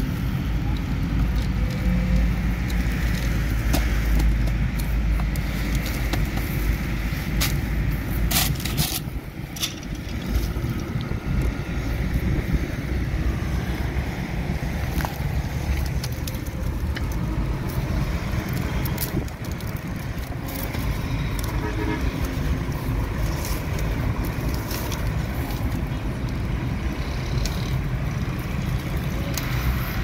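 A steady low rumble, like passing road traffic, with many sharp taps and knocks scattered through it.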